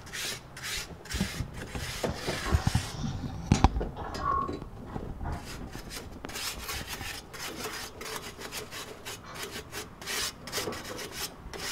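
A barbecue grate being scrubbed with an abrasive grill-cleaning block, worked back and forth in quick scraping strokes, with a few knocks about three seconds in.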